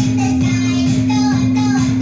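Backing music with a group of children singing along.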